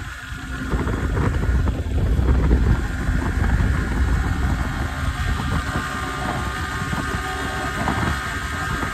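Wind buffeting the microphone of a Yamaha R15 sport bike at speed, with its single-cylinder engine running steadily at high revs underneath. Loudness dips briefly at the very start, then holds level.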